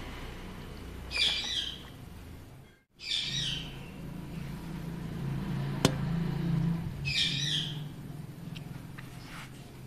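A bird's short chirping calls, three brief bursts a few seconds apart, over a low steady hum, with one sharp click about six seconds in.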